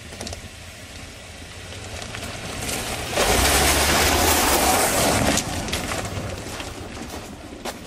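A Nissan X-Trail SUV driving past over loose rock and gravel, its tyres crunching on the stones. It grows louder over the first three seconds, is loudest for about two seconds as it passes close, then fades as it drives away.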